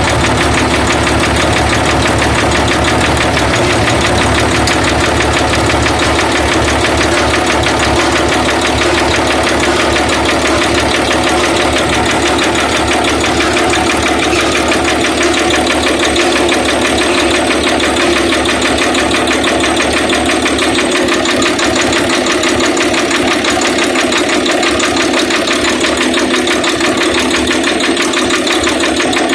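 Freshly overhauled Hino straight-six diesel engine on a generator set running steadily during its test run, loud and even.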